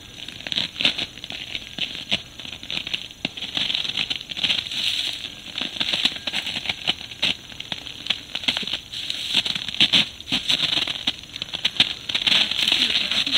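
Dry reed and brush stems rustling and crackling as a person pushes through them, with footsteps in snow; a dense, irregular run of crackles.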